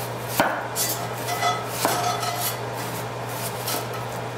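Chef's knife slicing through a red onion and knocking on a bamboo cutting board: two sharp knocks in the first two seconds, then softer, spaced cuts.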